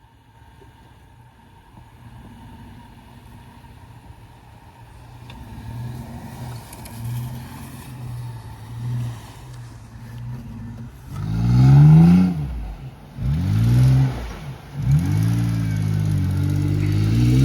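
A vehicle engine draws closer and grows louder, then revs up and down hard about four times in a row, each rev rising and falling in pitch.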